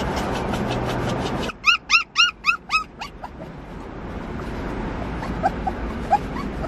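Australian Shepherd puppy crying: a quick run of about six high-pitched, whining yips about a second and a half in, then a few faint whimpers near the end.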